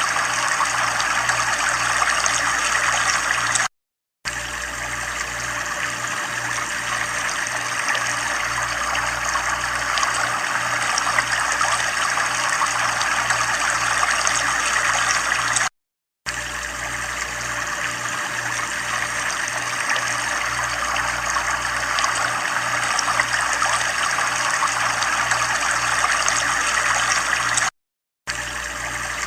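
Steady running, trickling water with a low pulsing hum underneath. It cuts out to silence briefly three times, about every twelve seconds, as a looped recording restarts.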